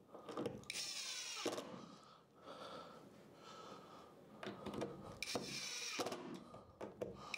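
Cordless drill driver driving screws through small wooden blocks into MDF, its motor whirring in two short runs, one about a second in and another about five seconds in, with handling noise between.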